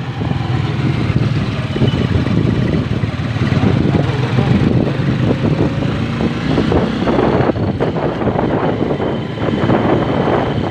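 Motorized tricycle (motorcycle with sidecar) running steadily while riding, a continuous low engine rumble. It turns rougher and noisier about two-thirds of the way through.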